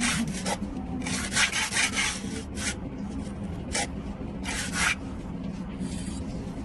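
A hand tool scraping across mortar in a series of rough strokes: a long one about a second in, then shorter ones, the strongest near the end of the fifth second. A steady low hum runs underneath.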